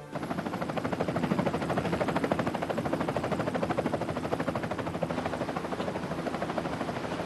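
Helicopter rotors and engine running, a fast even chop of blade beats that cuts in suddenly.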